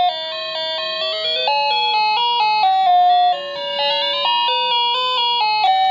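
Cheap wireless doorbell's chime unit playing one of its 32 built-in electronic tunes: a simple melody of single notes stepping up and down, each note held a fraction of a second.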